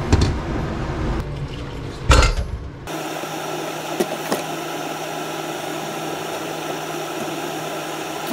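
Chicken boiling in a pan on a gas stove: a low rumbling bubbling with two louder surges. About three seconds in it gives way to a steady hum with a couple of light clicks as boiled chicken is pulled apart over a mesh strainer in a steel sink.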